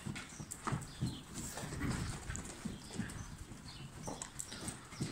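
Hoofbeats of a horse trotting on sand footing: dull, muffled thuds in an uneven rhythm, a few a second.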